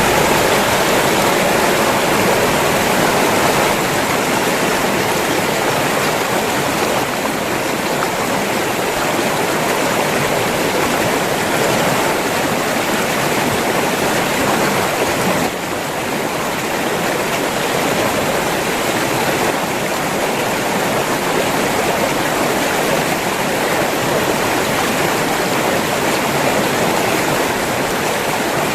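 River water flowing and rushing steadily, with a slight drop in level about halfway through.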